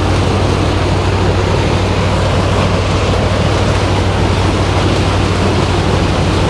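Farm machinery engine running steadily: a constant low hum under an even rushing noise.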